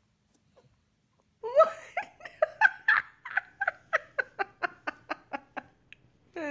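High-pitched human laughter: a long run of quick 'ha' bursts, about four a second, starting about a second and a half in and stopping about six seconds in.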